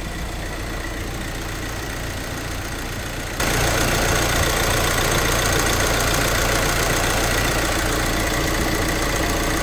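VW Crafter turbodiesel engine idling steadily, heard close up and louder from about three and a half seconds in. There is no hiss from the boost leak, which stopped once the seal ring on the housing was refitted.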